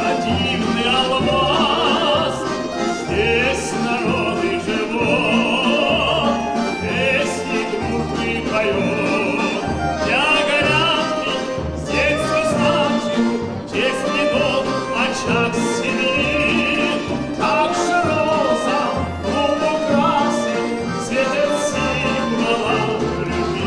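A male singer in a full, operatic-style voice sings with vibrato, accompanied by a folk orchestra of plucked strings with a double bass line.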